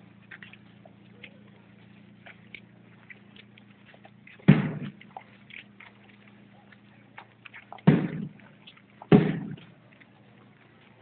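Three loud, sudden thumps or pops, the first about halfway through and two more close together near the end, each dying away within half a second, over a faint low hum and scattered small clicks.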